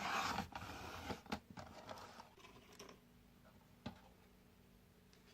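Paper and card being handled on a craft desk: a short burst of rustling at the start, then scattered light clicks and taps that thin out, with one last click near the end and a faint steady hum underneath.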